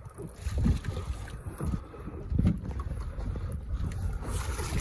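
Wind buffeting the microphone in gusts over choppy water lapping at a small boat, with a brighter hiss setting in near the end.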